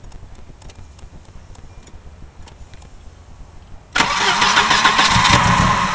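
1990 Volvo 240's B230F four-cylinder engine, quiet at first, then about four seconds in the starter cranks and the engine loudly fires and sputters without settling into a run. It is a no-start that the owner traced to a bent crank sensor trigger ring.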